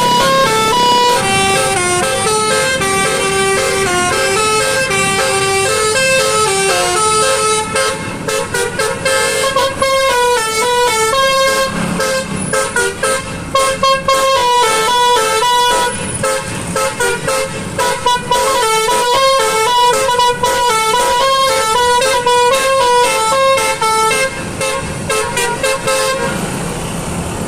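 Basuri telolet musical car horn playing a melody: a quick run of changing horn notes that carries on throughout.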